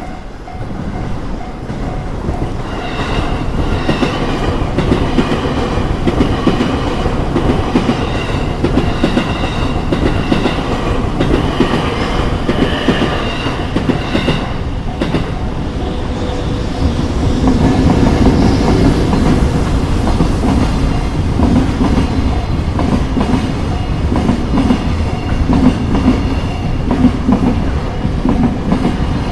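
Train passing close by at a level crossing: a continuous rumble with wheels clacking over the rail joints, getting louder about halfway through.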